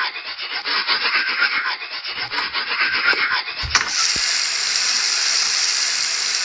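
Toothbrush scrubbing teeth in quick, even back-and-forth strokes. After a click a little under four seconds in, it gives way to a steady rushing hiss.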